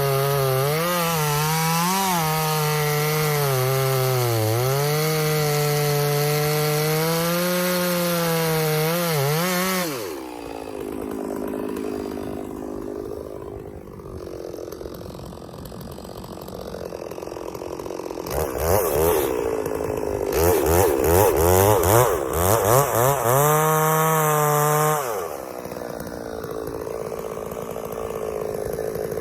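Gas chainsaw cutting wood at full throttle, its pitch dipping and recovering under load. About ten seconds in it drops to a lower idle. Later it revs up in a series of quick bursts and cuts again, then falls back to idle near the end.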